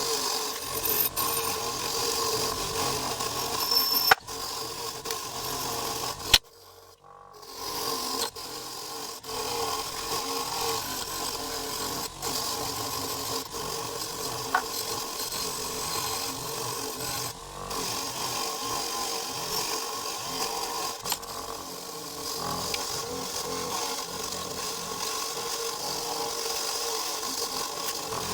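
Steady abrasive scraping and rubbing on the metal of antique pliers during restoration cleaning, with a few sharp clicks and a short break about seven seconds in.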